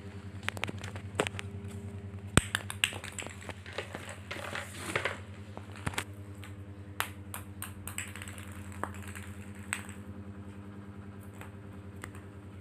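Scattered light taps and clicks from a kitten playing on a tiled floor and the phone being moved about, with one sharper knock about two seconds in and a brief rustle around the middle, over a steady low hum.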